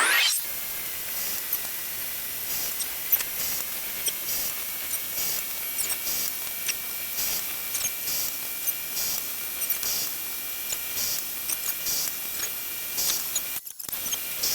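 Rhythmic hand-file strokes on the freshly cut steel thread, about one stroke a second, over a steady hiss and a faint high whine, with small ticks between strokes. The thread is being filed down so that its nut will fit.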